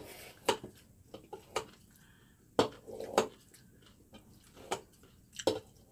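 Kitchen scissors snipping noodles in a bowl: a string of sharp, irregular clicks as the blades close and knock against the dish.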